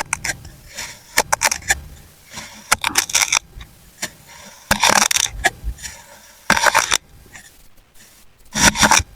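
Kinetic sand being cut with a blade: a series of short scraping cuts and sharp ticks, coming in clusters every second or two with quieter gaps between.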